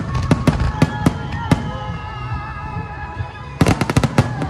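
Aerial fireworks shells bursting in volleys of sharp bangs and crackles: a string of reports in the first second and a half, then a rapid cluster of bangs near the end.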